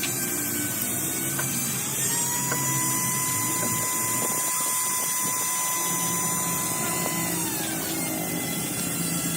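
A power tool running with a steady whine that rises slightly about two seconds in and drops back about seven seconds in, over a rough low rumble.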